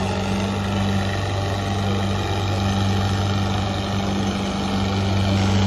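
An engine running steadily: a low, even drone that holds the same speed throughout.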